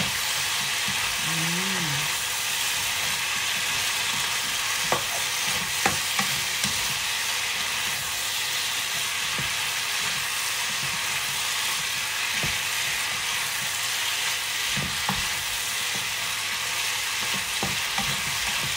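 Chicken feet sizzling in a frying pan as they brown in soy and oyster sauce, stirred with a spatula that knocks against the pan a few times.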